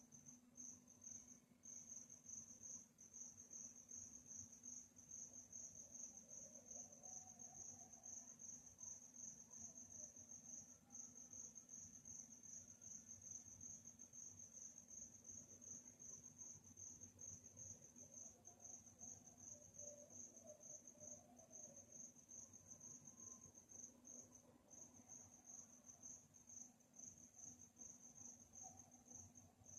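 Crickets chirping at night in a steady, fast pulsed trill that hardly breaks, faint, over a low steady hum.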